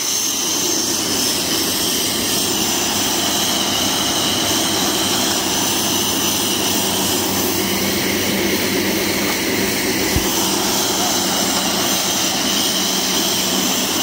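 Corn stalk silage round baler running: a loud, steady mechanical din, with one short knock about ten seconds in.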